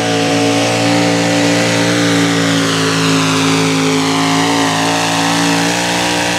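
Pulling vehicle's engine running flat out at a high, steady pitch, then cutting off sharply at the end.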